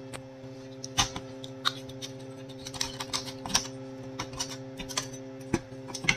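Irregular light clicks and taps of hands working on a copier's disassembled touch-panel assembly: plastic housing, ribbon-cable connectors and a sheet-metal shield plate being handled and lifted. A steady low hum runs underneath.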